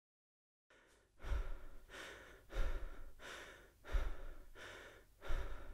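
A person breathing heavily: four hard breaths about a second and a half apart, starting about a second in, each beginning suddenly and trailing off.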